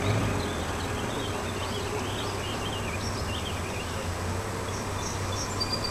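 Birds chirping in a quick, warbling run for the first few seconds over a steady low hum.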